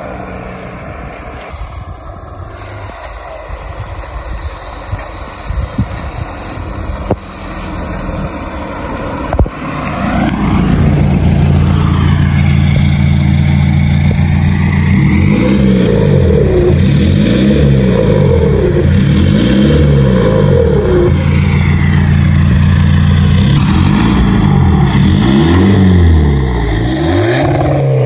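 Straight-piped VW Golf 4 1.9 TDI four-cylinder turbodiesel, faint at first, then close up and idling steadily from about ten seconds in. From about fifteen seconds in it is blipped several times, each rev rising and falling quickly.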